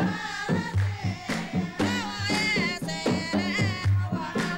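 Dhofari sawt silam folk music: kasir barrel drums beaten in a repeating pattern with deep low strokes and sharp handclaps, and voices singing over them.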